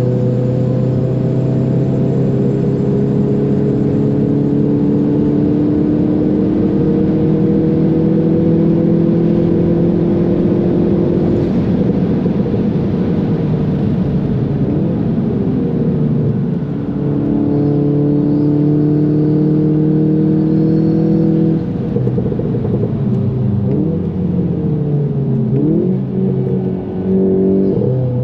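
In-cabin sound of a VW Golf 7 GTI's turbocharged 2.0-litre four-cylinder pulling hard at full throttle in a high gear, its pitch climbing slowly, with an upshift about 11 seconds in and a second pull after a brief lift. Near the end the revs swoop up and down several times as the car brakes hard and shifts down for a corner.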